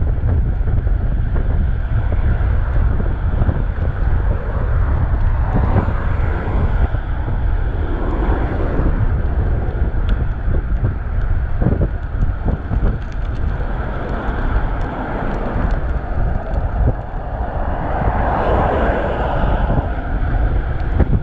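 Wind buffeting the microphone of a chest-mounted action camera on a moving bicycle: a steady low rumble, with a few louder rushing swells, the strongest near the end.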